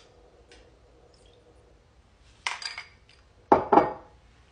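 Kitchenware clinking and knocking as it is handled on a counter: a few faint taps, then two short clattering bursts about two and a half and three and a half seconds in, the second the loudest.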